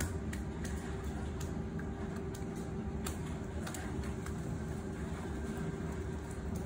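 Steady background hum with a low rumble and a faint steady tone, broken by a few faint clicks.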